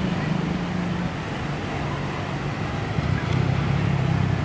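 Beach ambience: a steady wash of surf with a low, steady hum underneath.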